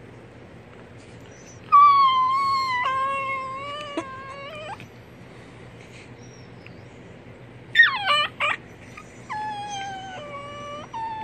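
Dog whining during rough play: a long high whine about two seconds in that drops lower, a few short sharp yelps a little before the eight-second mark, then more falling whines.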